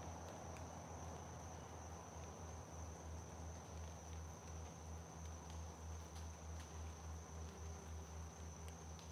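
Insects trilling in one steady high-pitched chorus, over a low pulsing hum and a few faint ticks.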